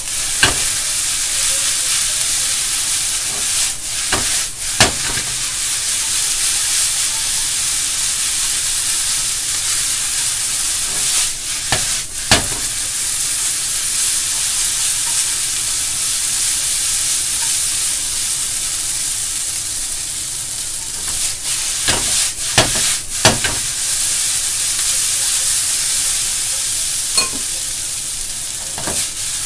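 Noodles, cabbage and pork sizzling steadily in a frying pan over a gas flame as they are stir-fried, with a few sharp knocks of chopsticks and pan scattered through it as the food is tossed.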